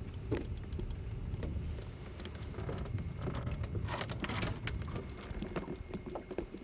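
A boat's outboard motor running low and steady while trolling, under scattered sharp clicks and taps, with a louder rustling burst about four seconds in.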